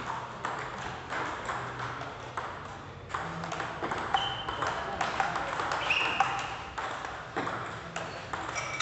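Table tennis rally: the small plastic ball clicking off rubber paddles and bouncing on the table, a quick run of sharp taps.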